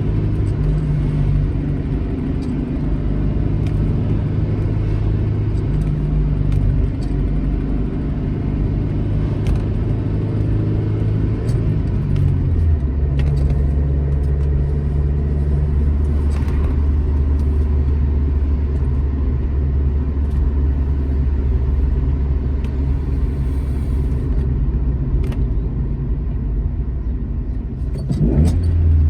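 Alfa Romeo GT Junior's twin-cam four-cylinder engine running steadily on the road; about twelve seconds in its note drops to a lower, even pitch, and near the end it rises as the engine revs up.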